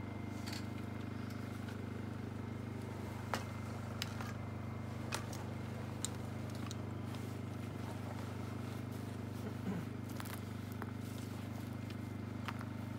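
An engine running steadily at idle, a constant low hum, with a few scattered light clicks and knocks over it.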